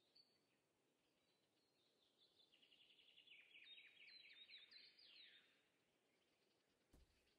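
A small bird singing faintly: one phrase of quick, high notes, each falling in pitch, lasting about three seconds and starting about two seconds in. A soft low bump near the end.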